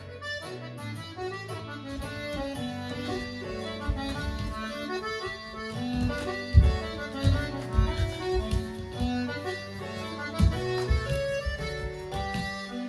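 Instrumental music: a melody of held notes over steady sustained bass notes, with low thuds scattered through it.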